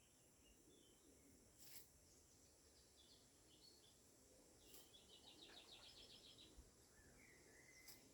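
Faint wild birds calling: scattered short high chirps, then a quick trill of rapid repeated notes about five seconds in, and a few lower chirps near the end. A few brief faint clicks come through the quiet background.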